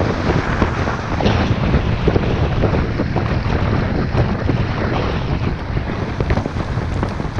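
Wind buffeting the microphone of a camera carried by a moving skier: a steady low rumble with a rushing hiss over it, from the skis sliding across the snow.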